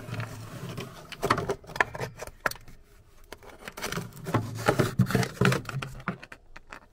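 Dry ice pellets clicking and scraping against a metal shaft tube as they are worked into it by hand, in an irregular scatter of small taps. The tube is being chilled to shrink it so a bearing will slide on.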